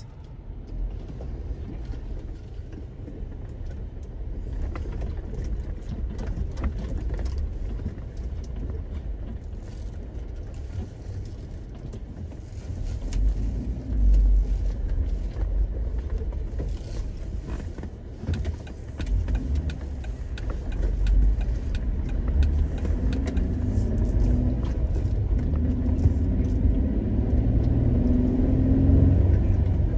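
Jeep Rubicon driving, heard from inside the cab: a steady low engine and road rumble with scattered knocks, growing louder from about halfway.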